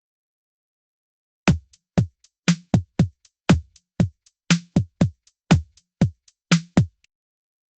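Electronic drum-machine beat: deep kicks that drop in pitch and snare hits, about two a second, with faint hi-hat-like ticks between. It starts about one and a half seconds in and stops about seven seconds in.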